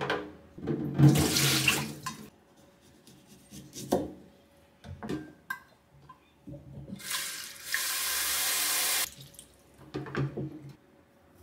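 Kitchen tap running into a stainless-steel sink, a steady rush of water lasting about two seconds in the second half. Short knocks and clatter come before and after it.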